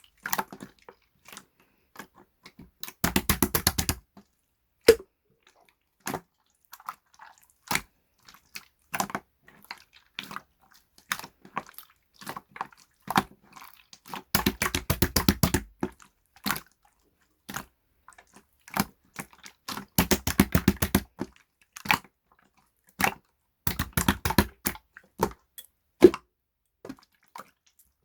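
Irregular sharp clicks and taps, broken by four bursts of rapid clicking about a second long each.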